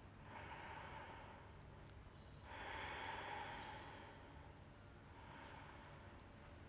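Faint, slow breathing of a woman kneeling at rest: about three long, even breaths, each a second or two of soft airy hiss. She is catching her breath after exertion in a forearm stand.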